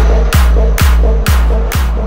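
Electronic dance music with a heavy kick drum about twice a second over a deep, steady bass.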